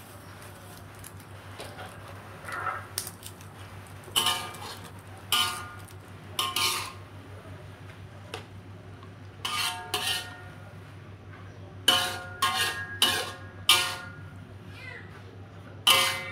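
Metal spatula knocking and scraping against a metal wok while turning mushrooms. About ten sharp clanks, each with a short metallic ring, come in irregular clusters.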